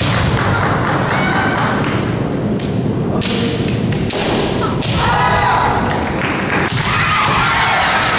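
Women's kendo bout: feet stamping on a wooden floor and shinai strikes as repeated thuds and knocks, with short high shouted kiai about a second in, around five seconds in and near seven seconds. A dense, steady hall noise runs underneath.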